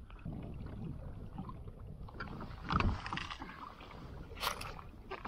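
Water moving around a kayak's plastic hull on a river, with a steady low rush of wind and water. A louder splashing swell comes about three seconds in, and a few short sharp knocks follow near the end.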